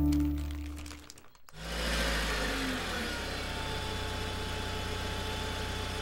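Music dies away in the first second. After a brief near-silent gap, a steady low rumble with a hiss over it sets in: a vehicle running at a steady pace.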